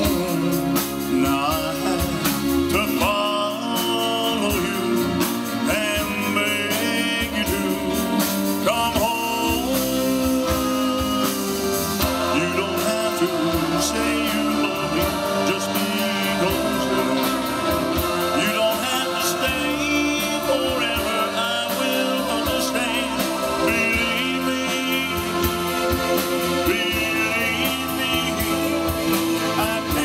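Live band playing a song with singing over drums, guitar and keyboard, amplified through PA speakers.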